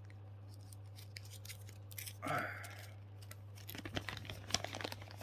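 A pause in speech: a steady low hum, a short breathy sound about two seconds in, then a run of small clicks and rustles near the end.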